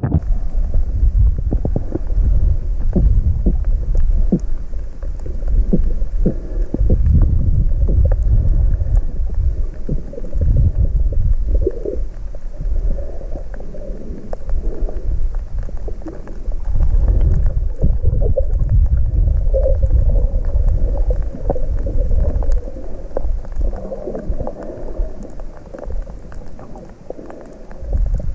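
Muffled underwater rumble and sloshing of water moving around a submerged camera housing, swelling and fading every several seconds, with scattered faint clicks.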